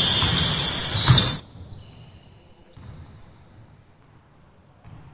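Basketball game sounds in a large gym: a loud burst of noise with a high steady tone cuts off abruptly about a second and a half in, leaving faint ball bounces echoing in the hall.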